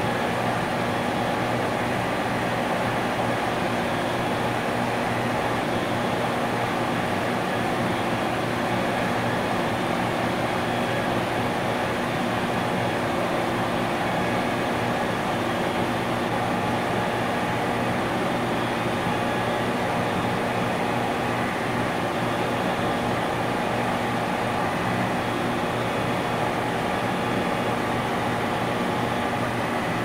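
Industrial compressor running steadily: a constant low mechanical hum with a dense rushing noise over it, unchanging throughout.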